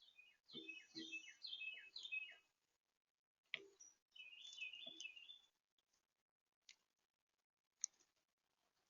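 Small bird chirping in quick, repeated downward-sliding notes, then a second short chirping phrase a couple of seconds later, with a few sharp clicks in between.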